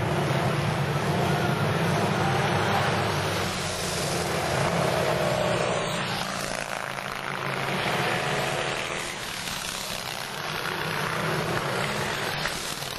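Pre-1910 antique racing motorcycles running flat out around a dirt track. Their engine noise swells and fades as the bikes pass, with the engine note sliding in pitch.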